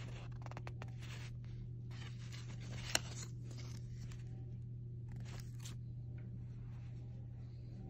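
Light rustling and clicking of a cardboard hang tag and polyester jersey fabric being handled, with one sharper tick about three seconds in, over a steady low hum.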